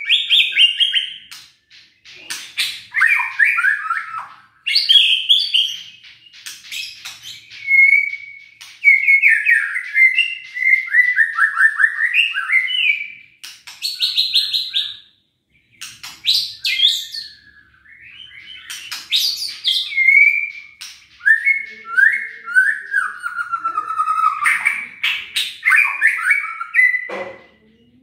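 White-rumped shama singing a long, varied song: rich whistled phrases and rapid descending trills mixed with sharp clicking notes, broken by a brief pause about halfway.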